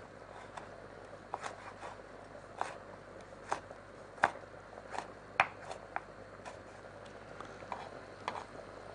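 Kitchen knife slicing and chopping a tomato on a wooden cutting board: about a dozen short taps of the blade on the board at uneven intervals, the loudest near the middle.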